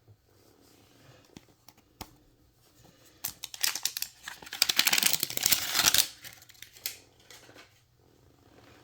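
Blind-box toy packaging torn open by hand along its perforated line: a dense, crackling rip of several seconds starting about three seconds in, with light handling rustles and taps before and after.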